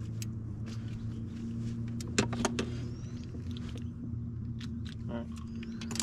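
A steady low electric hum from a small motor on a fishing boat, with scattered sharp clicks and knocks from handling as a pike is put into the live well.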